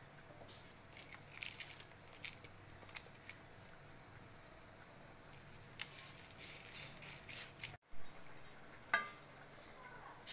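Faint scattered clicks and rustles of mint leaves, small onions, garlic and green chilli being dropped and pushed by hand from a steel plate into a stainless-steel mixer-grinder jar, with a sharper tap of metal near the end.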